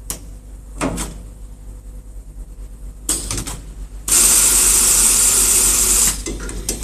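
Pneumatic film clamp-and-cut mechanism of an automatic pallet wrapping machine: a few sharp clicks and knocks as the clamp arm and cylinders move, then about two seconds of loud, even hiss of compressed air venting, starting about four seconds in. A low steady machine hum runs underneath.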